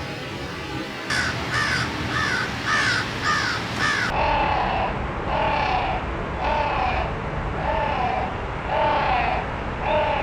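A bird calling in two series of short repeated calls. About a second in, six quick higher-pitched calls come about two a second. After a cut, a slower run of lower-pitched calls comes roughly one a second.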